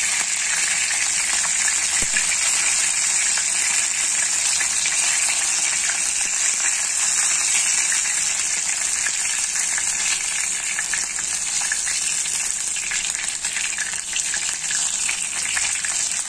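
Chicken wings sizzling as they shallow-fry in hot oil in a wok, a steady crackling hiss.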